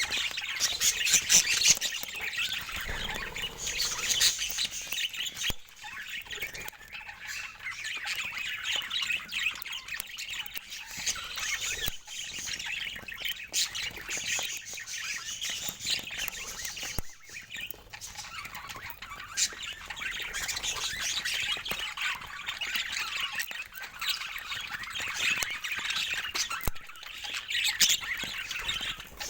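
Budgerigars chattering and warbling without a break, with sharp squawks and chirps running through it.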